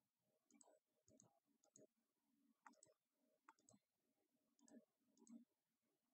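Faint clicks of a computer mouse, mostly in quick pairs, about once every half second to a second.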